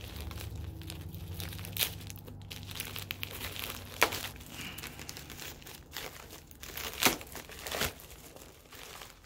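Plastic bag crinkling as it is handled and opened, with a few sharper crackles, the loudest about four and seven seconds in.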